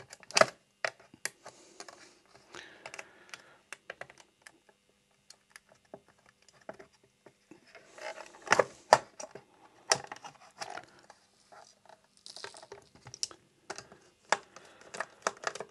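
Hands handling a white plastic device case on a work mat: irregular clicks, taps and scrapes of plastic, with a few sharper knocks about half a second in and again around eight and a half seconds. Near the end a screwdriver is put to one of the case's corner screws.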